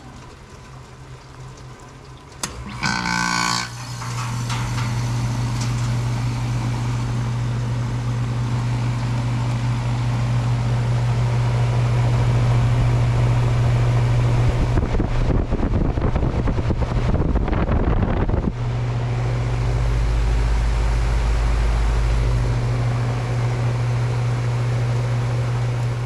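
Goodman 2-ton heat pump coming out of defrost: a click, then a brief loud whoosh as the reversing valve shifts back. After that the compressor and outdoor fan run with a steady low hum that builds over several seconds. A few seconds of rumbling buffeting on the microphone come past the middle.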